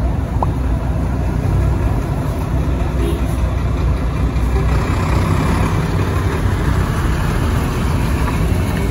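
Steady rumble of slow street traffic heard from inside a vehicle: a box truck and a HOWO concrete mixer truck crawling past close by with their engines running.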